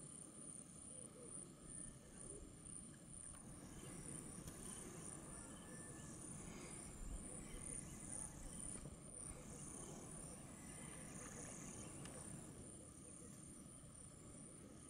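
Faint, steady high-pitched insect chorus, like crickets, over a low background rumble.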